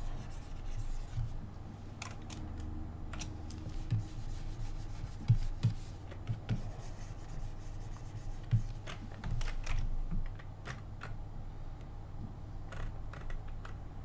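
Irregular clicking and tapping of a computer keyboard and mouse, with soft low thumps scattered among the clicks.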